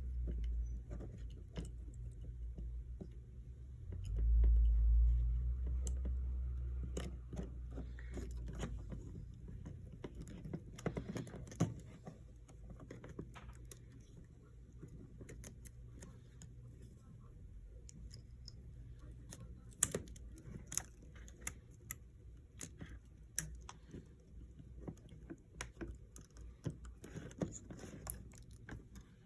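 Scattered small clicks and taps of tools and phone parts being handled while the flex-cable connectors of an iPhone 11 are fitted back in place. A low rumble of handling noise about four seconds in is the loudest part.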